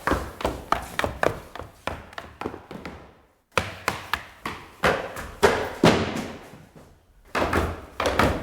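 Footsteps on stairs: quick, even steps, about three or four a second, in three runs, each fading away before the next begins with a sudden start.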